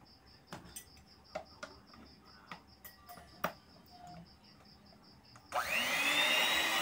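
Clicks of the metal beaters being fitted into an electric hand mixer, then about five and a half seconds in the mixer's motor switches on and runs with a loud high whine, the beaters spinning in the air with no load.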